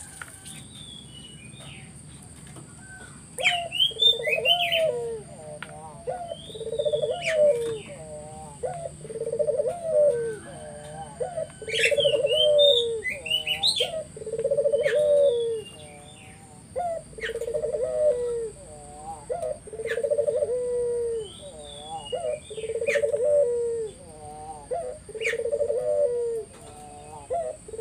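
Puter dove (Barbary dove) cooing over and over in full song, a steady run of low rolling coos starting about three seconds in. Higher, quicker chirps of small birds come between the coos.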